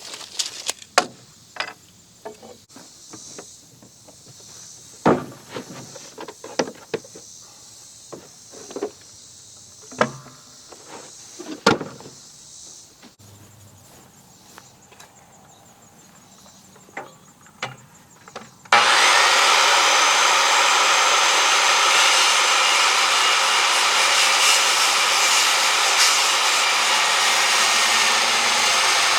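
Scattered knocks and clatter of heavy timber being handled, over a faint steady insect chirr. About two-thirds of the way through, a power saw starts abruptly and runs steadily and loudly, cutting through a 6x6 treated timber.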